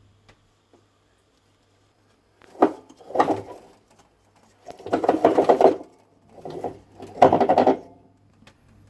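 Whirlpool washing machine giving five bursts of rapid rattling grind over a steady low hum. This is the sign of a drum spider (tripod) broken where it joins the shaft, with the drum not spinning.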